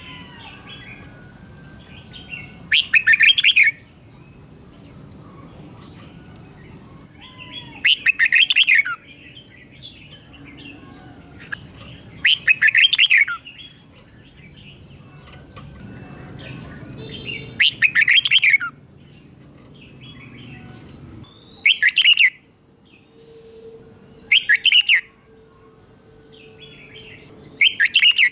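Red-whiskered bulbul singing its doubled song: seven loud, short phrases, each about a second or less, spaced three to five seconds apart, with fainter chirps between them.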